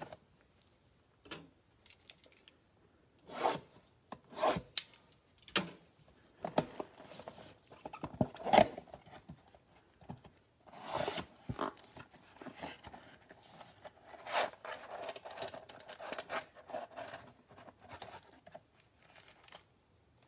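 Cardboard trading-card box being torn open and its card packs pulled out and handled: a run of sharp tearing and rasping sounds, the loudest about eight seconds in, then a longer stretch of rustling and crinkling as the packs are taken out.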